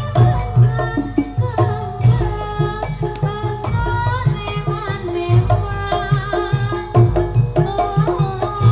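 Javanese barongan accompaniment music: hand drums (kendang) beating steady strokes under pitched melody instruments, with a voice singing a wavering line above.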